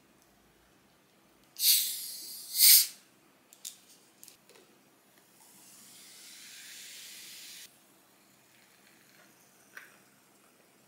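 A plastic bottle of Coca-Cola Zero being twisted open: two sharp hisses of escaping carbonation about one and a half and two and a half seconds in. Midway through, a softer, steady fizzing hiss lasts about two seconds.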